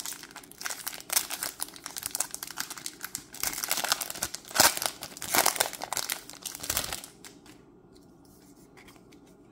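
Foil wrapper of a Magic: The Gathering play booster pack crinkling and tearing as it is opened by hand: a dense run of crackles that stops about seven seconds in.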